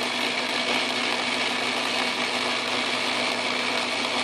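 Craftsman Atlas metal lathe running under a turning cut on a steel pipe, the tool peeling off steel chips. A steady hum and whine at an even level throughout.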